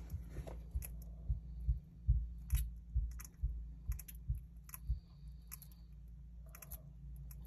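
Bearded dragon chewing and biting down on a mouse: soft thumps with small wet clicks, about two or three a second, easing off after about five seconds.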